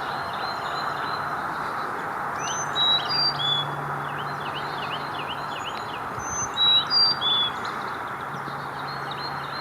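Carolina chickadee singing its high, clear four-note whistled song (fee-bee, fee-bay) twice, with quick short chirps between, over a steady hiss.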